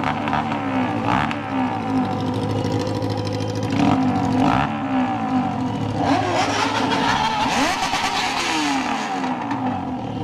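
Yamaha XJ6 inline-four motorcycle engine running loud through a straight pipe with no muffler, revving up and down. Several engine pitches rise and fall at once, so other vehicle engines are mixed in.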